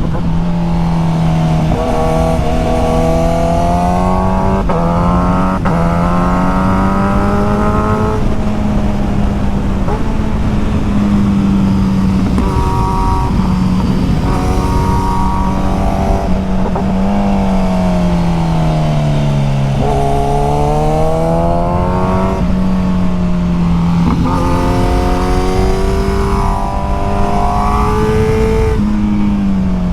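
Sport motorcycle engine heard from on the bike, pulling through the revs, its pitch climbing and sagging as the rider speeds up and slows for the road, with heavy wind noise rushing over the microphone.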